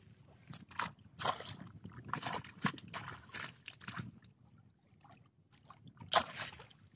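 Lake water splashing and sloshing in irregular bursts as a mesh keep net is dipped and moved in the water, the loudest splash about six seconds in.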